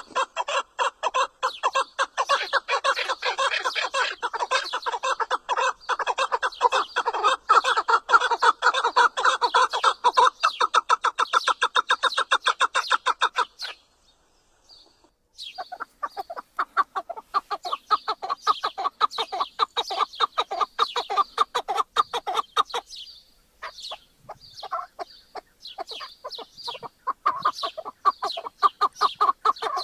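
Chukar partridge calling in a fast, continuous run of short repeated notes. The calling breaks off for about two seconds roughly halfway through, then starts again.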